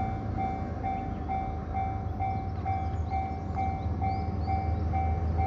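Japanese railway level-crossing warning bell ringing, an electronic ding repeating about twice a second, signalling an approaching train. A steady low rumble runs under it.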